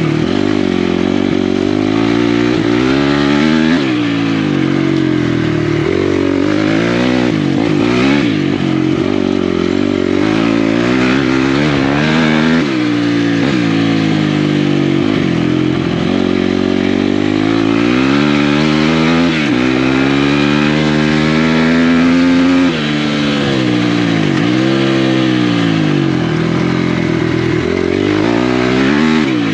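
Off-road motorcycle engine racing flat out. Its pitch climbs and drops every second or two as the throttle is opened and chopped through shifts and turns, with one sudden throttle chop about three quarters of the way through.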